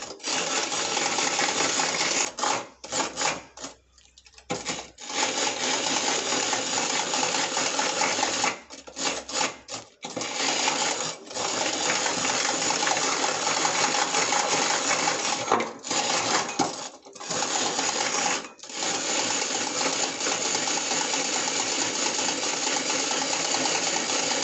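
Hand-cranked rotary egg beater whirring and rattling, its metal gears and beaters clattering in a glass bowl as eggs and sugar are whipped to a foam. The cranking stops briefly several times and then starts again.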